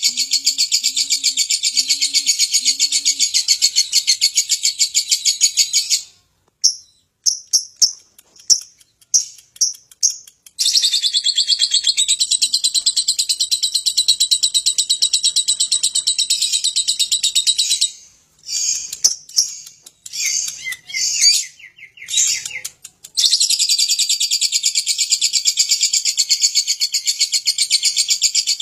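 Lovebird singing its long 'ngekek': long bouts of very rapid, high chattering notes, broken twice by a few seconds of separate short chirps and pauses.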